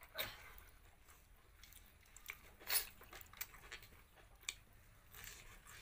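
A person chewing and crunching food eaten by hand, close to the microphone: a series of short, sharp crunches, loudest a little before three seconds in.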